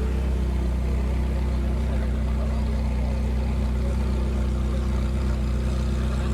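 A car engine idling steadily with a constant low hum.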